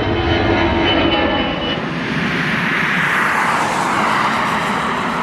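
Jet engines of an easyJet Airbus A319 at takeoff power on its departure. A steady whine gives way to a broad jet roar about two seconds in.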